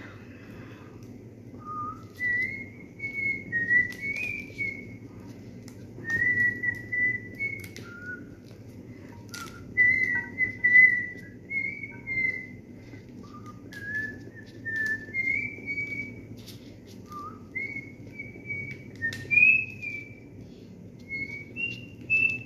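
A person whistling a tune in short and held notes that step up and down in pitch, with a few faint clicks behind it.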